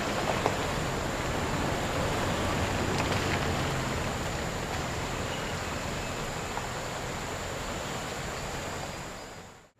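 A Jeep Wrangler JK and then a Toyota 4Runner crawling past slowly over a rocky off-road trail, their engines a low steady hum, over the steady rush of a swollen creek. The engines fade as the vehicles pull away, and the sound cuts off abruptly just before the end.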